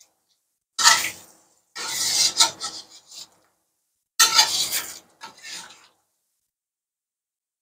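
Spatula scraping and stirring against a metal wok through thick coconut-milk fish rendang, in four rasping strokes, the second one the longest.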